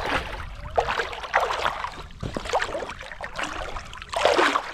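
Lake water splashing and sloshing in several irregular bursts as a person moves through it, the loudest near the end.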